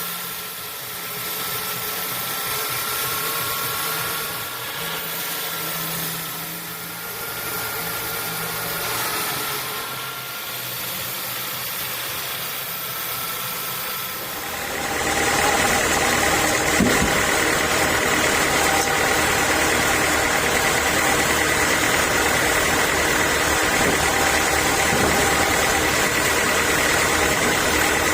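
Sawmill machinery running steadily. About halfway in it grows louder, with a higher whine running on over it.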